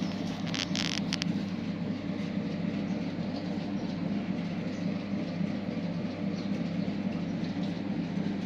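Steady low rumbling background noise, with a few short sharp clicks about a second in.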